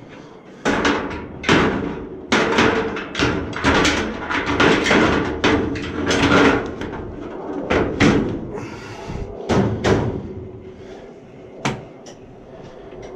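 Boiler's front access door being fitted back on: a run of clanks, knocks and rattles for about ten seconds, then a single sharp click near the end. A steady hum runs underneath.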